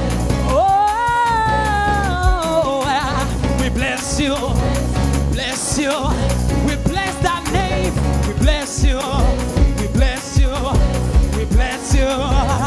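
Live gospel worship band playing, with bass and drums keeping a steady beat. A singer holds one long wavering note near the start, then sings runs without clear words.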